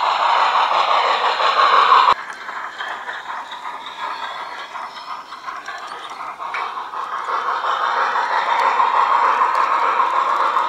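Garden-railway model steam locomotive and its ballast hopper wagons rolling along the track, a steady rattling rumble of wheels on rail. It cuts off abruptly about two seconds in, then builds again as the train comes closer.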